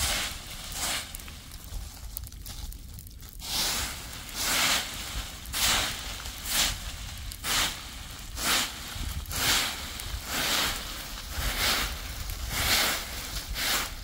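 Short hand broom sweeping through a deep layer of dry fallen leaves, one brisk swish about every second, with the leaves rustling as they are flung. The strokes are fainter at first and become regular from a few seconds in.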